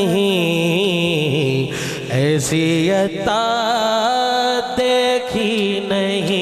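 A man sings a devotional Sufi kalam into a handheld microphone, drawing out long held notes with wavering, ornamented turns.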